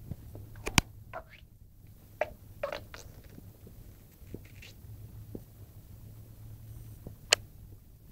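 A dog's stomach gurgling and squeaking: a cluster of short gurgles that slide up and down in pitch in the first three seconds, then fainter rumbling. Two sharp clicks stand out, about a second in and near the end.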